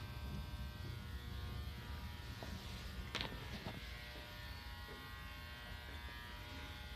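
Steady low electrical buzz with many fine tones over a low hum, with one faint click about three seconds in.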